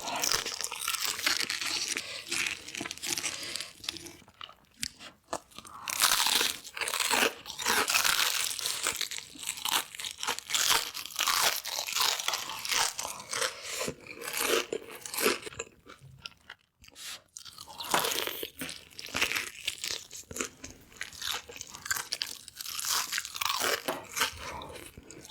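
Close-miked eating of chicken: repeated crunching bites and chewing, with short pauses about four seconds in and again around sixteen seconds.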